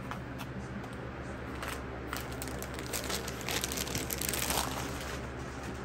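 Packaging being torn open and handled, crinkling in irregular bursts that grow denser and louder in the second half, over a steady low hum.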